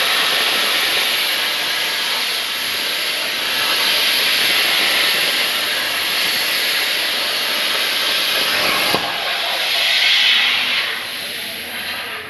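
CNC plasma torch cutting 2 mm sheet steel: a loud, steady hiss of the arc and air. It changes with a click about nine seconds in, then weakens and tapers off near the end.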